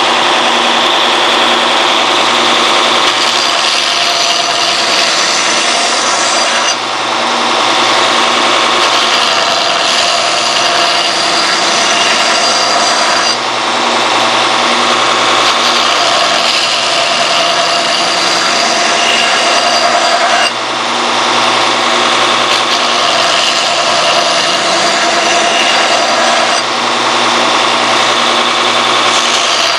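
Knife-maker's belt grinder running with a 40-grit belt, grinding forge scale off the sides of a forged steel knife blank. The grinding is steady and loud, dipping briefly four times.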